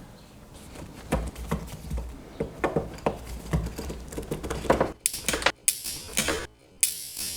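Irregular clicks and scrapes of tools and fingers working at a 9-volt battery's metal casing during a teardown, sharper and closer together in the second half.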